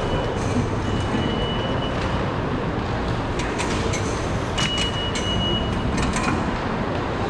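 New York City subway train running with a steady, loud rumble. A high squeal sounds twice for about a second each, and scattered sharp clacks rattle in the second half.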